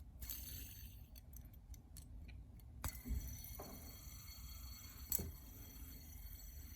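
Light clicks and taps from a skeleton fidget spinner being handled and passed from one hand to the other, with sharper knocks about three seconds in and again around five seconds.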